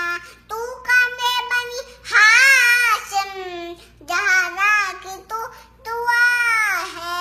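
A young girl singing an Urdu devotional lament about Abbas, solo voice with no accompaniment. She sings in drawn-out phrases with short breaks between them.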